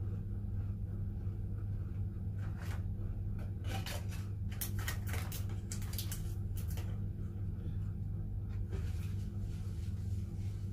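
A steady low hum, with a cluster of short crisp clicks and crackles from about two to seven seconds in and a few more near nine seconds: the sounds of someone eating a biscuit at a breakfast table.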